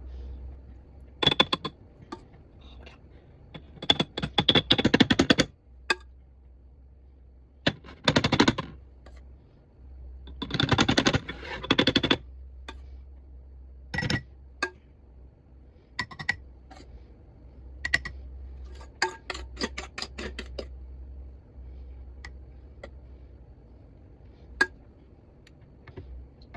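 A spoon scraping a bowl and tapping against jars as thick cream-cheese filling is spooned in: scattered clicks and clinks with a few longer scraping runs, over a steady low hum.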